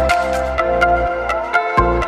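Electronic background music with a steady beat over held synth tones and bass.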